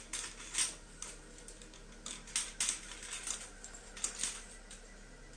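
Camera on a tripod clicking: about eight irregular sharp clicks over four seconds, some in quick pairs, as the camera is handled and its shutter fired.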